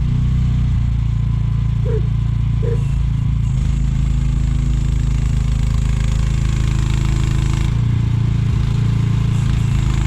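Mini excavator's diesel engine running steadily with the throttle up. Its note shifts about eight seconds in, and two short squeaks come a little after two seconds.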